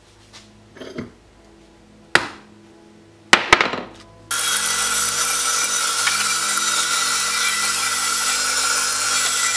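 A few sharp knocks and clatters, then about four seconds in a bandsaw starts up and runs steadily, cutting through a cast resin handle blank, with a steady whine over the cutting noise.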